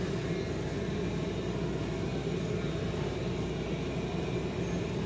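Enclosed 5 kW diesel air heater running at full output, its burner and blower fan giving a steady low rushing rumble.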